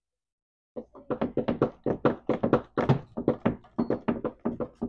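A quick run of sharp knocks or taps, about seven a second, starting about a second in and going on steadily.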